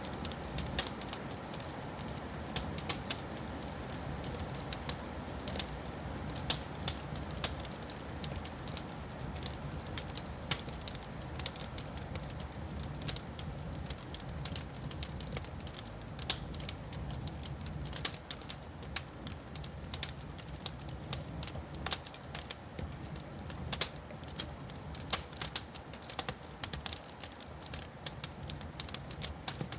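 Wood fire crackling in a fireplace: many irregular sharp pops and snaps over a low, steady rumble.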